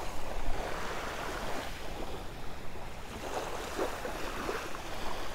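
Small waves lapping and washing onto a shell-and-gravel shoreline, with wind rumbling on the microphone.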